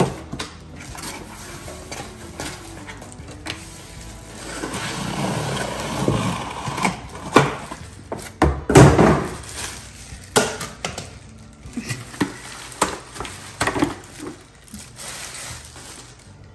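Cardboard box and plastic wrapping rustling and scraping as an enamelled cast iron Dutch oven is unpacked, with a run of sharp knocks and thumps, the loudest a little past halfway.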